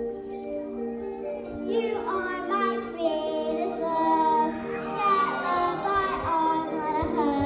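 A young girl singing over instrumental music; her voice comes in about two seconds in.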